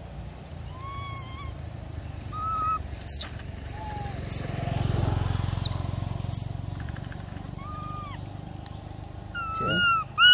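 Long-tailed macaques calling: short arching coos and several sharp, high, falling squeaks, the loudest about three and six seconds in. A steady faint high whine runs underneath.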